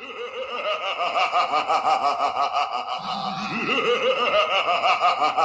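A man laughing in a long, unbroken run of quick chuckles.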